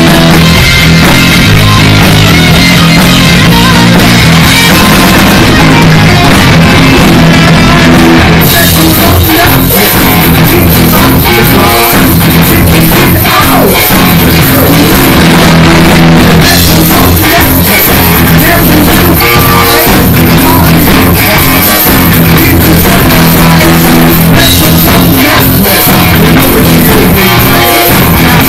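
A heavy metal band playing loud at close range: electric guitar, bass guitar and drum kit, with sung vocals. The cymbals come in brighter about a third of the way through.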